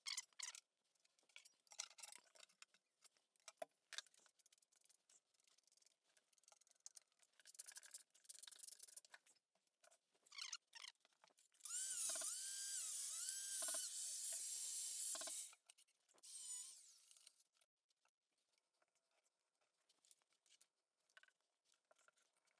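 Scattered scrapes and taps of trowel and tile work, with a handheld power tool running for about four seconds midway, its pitch wavering up and down with load.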